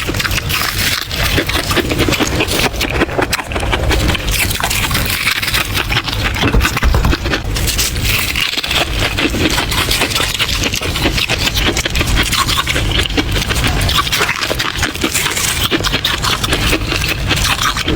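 Close-miked chewing and crunching of soft freezer frost: dense, continuous fine crackling with no pauses.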